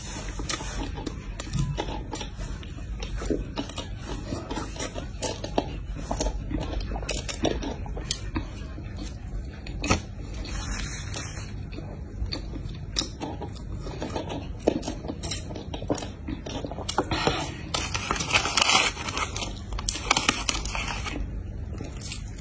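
Close-up eating sounds: a burger chewed with wet mouth clicks and lip smacks. About three-quarters of the way through there is a louder stretch of paper wrapping crinkling as a fried chicken wing is unwrapped.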